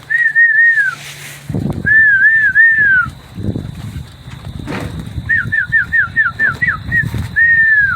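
A person whistling to call a kit of Birmingham Roller pigeons in to land: three looping notes, then three more, a quick run of about eight short falling notes, and one long note that slides down at the end.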